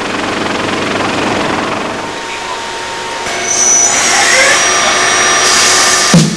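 A steady rushing noise. About three seconds in, a metal-cutting lathe takes over with a louder hiss and a thin, steady high whine.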